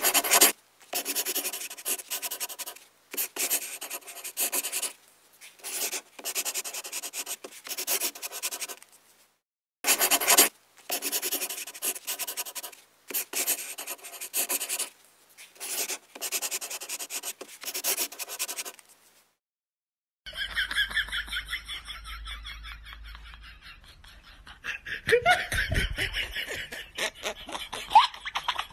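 Scratchy strokes of a pencil on paper, in short bursts of about a second with brief pauses between them. About two-thirds of the way through they stop, and a giggling laugh follows.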